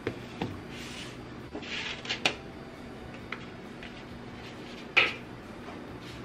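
Kitchen handling sounds: scattered clicks and knocks of dishes and utensils being moved, a short scraping rustle about two seconds in, and a sharper knock about five seconds in.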